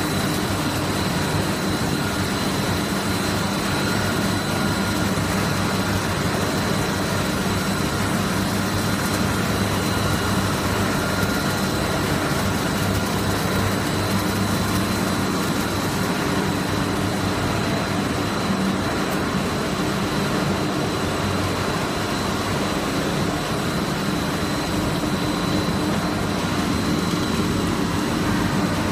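Snack pellet production line machinery running: a steady mechanical drone with a low hum and a constant thin high whine over it.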